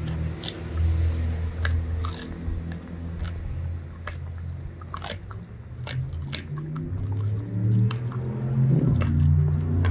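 German Shepherd chewing chicken feet, the bones cracking in sharp, irregular crunches about once a second. A low droning hum runs underneath.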